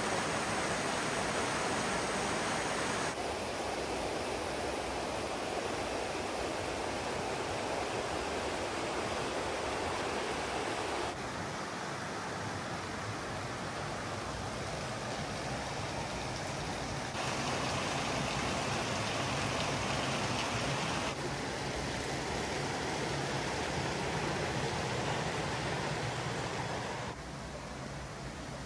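Rushing water of a small mountain stream tumbling over rocks: a steady hiss that jumps up or down in loudness several times and turns quieter near the end.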